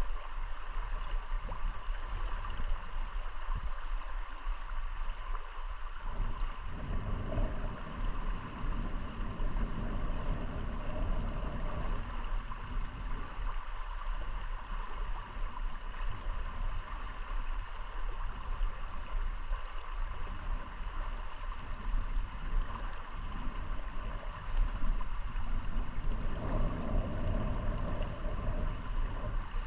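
River current flowing over a shallow, rocky riffle: a steady sound of running water.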